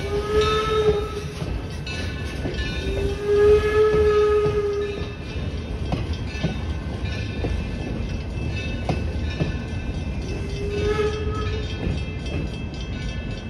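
Steam whistle of the 0-6-4T tank locomotive Torch Lake blowing three times: a short blast, a longer one of about two and a half seconds, then another short one near the end, over a steady low rumble.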